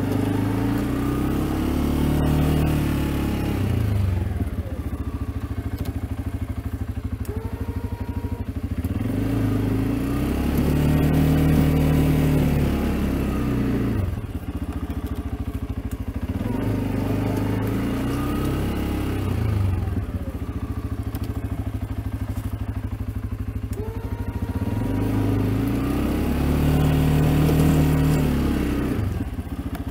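CFMoto CForce ATV engine pushing a plow blade through wet snow, revving up and dropping back about four times as it drives forward and backs off between passes.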